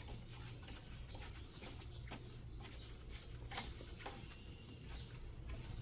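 Faint scattered clicks and light scraping of small battery hardware being handled by hand, over a low steady hum.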